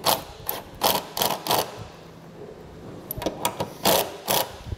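Cordless drill/driver driving a self-tapping screw into the vehicle's sheet-metal body in short trigger bursts: a quick run of bursts, a pause of about a second and a half, then several more.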